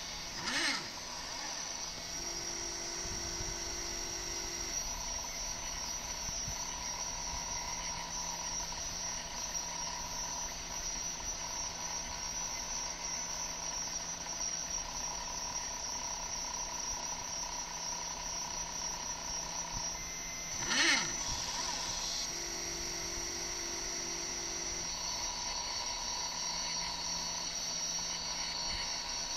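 Stepper motors of a small CNC laser engraver whining as they drive the laser head through an engraving job, steady tones of a few pitches switching on and off as the axes move. Two short sweeping zips, one just after the start and one about two-thirds through, mark quick travel moves.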